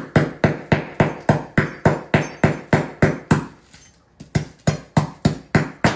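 Large kitchen knife chopping repeatedly into a hard Moroccan sugar loaf (pain de sucre) on its paper wrapper, breaking it into chunks: a steady run of sharp chops, about three to four a second, with a brief lull about two-thirds through before the chopping resumes.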